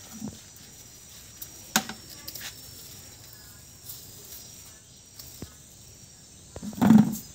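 Cucumbers being picked by hand off trellised vines: leaves rustling and a few short, sharp snaps of stems, then a louder thump near the end. Insects chirr faintly and steadily in the background.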